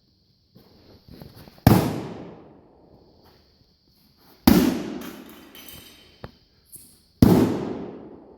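Three heavy hammer blows on an old Sentry fireproof steel safe, spaced a few seconds apart, each a loud metallic bang that rings out for about a second, as the door is being knocked loose.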